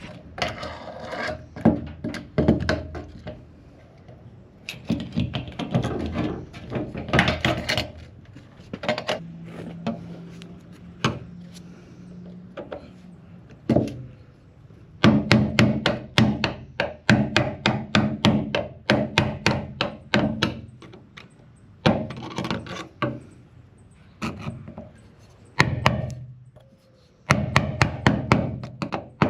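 Hammer tapping on metal in quick bursts of several strikes a second, with short pauses between the bursts.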